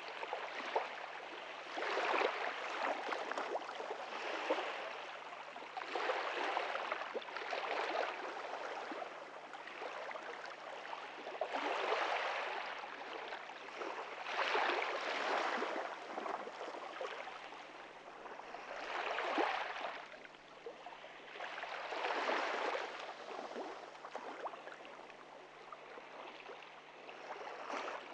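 Small ocean waves washing onto a beach: a steady hiss of water that swells every two to three seconds as each wave breaks and runs up the sand, then eases off.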